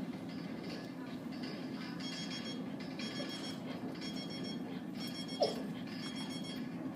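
Electronic timer beeper going off in a rapid repeating pattern of high beeps like an alarm clock, starting about two seconds in; it signals that the speaker's time is up. A single short squeak stands out a little past five seconds in.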